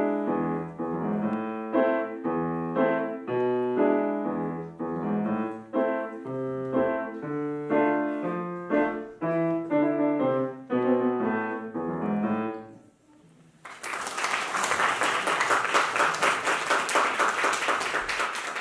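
Solo grand piano playing fast, busy passages with a low bass line until the piece ends and its last notes die away about two-thirds through. After a moment's pause, an audience applauds.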